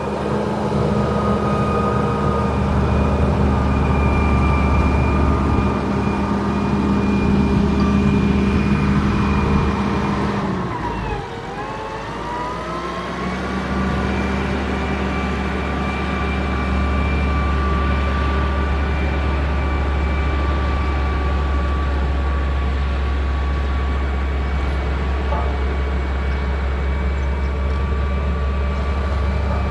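Motor grader's diesel engine running steadily. About eleven seconds in its revs drop briefly, then climb back to a steady pitch.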